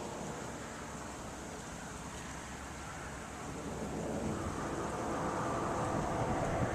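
Wind buffeting the microphone, a steady rushing noise that grows louder a little past halfway.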